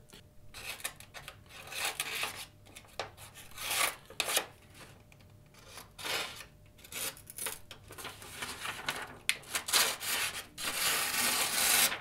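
Sheet of paper being cut with the edge of a steel credit-card multi tool: a series of short rough rasping strokes, then a longer drawn one near the end. The card stays thick behind only a small beveled edge.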